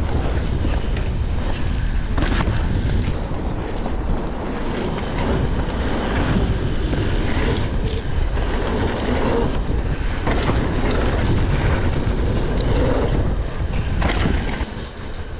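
Wind buffeting the action camera's microphone while riding a mountain bike on a wet dirt track, with tyre rumble and occasional knocks and rattles from the bike over bumps.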